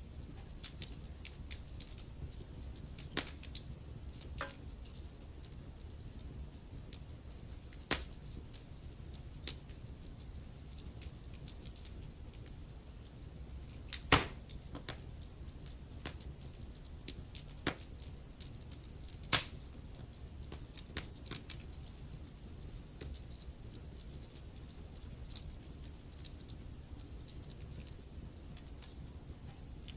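Wood fire crackling in a fireplace: irregular small snaps and clicks with a few louder pops, over a low steady rumble.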